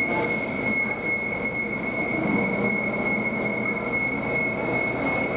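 Moscow Metro train running with a steady high-pitched wheel squeal over the rumble of its running gear; the squeal stops near the end.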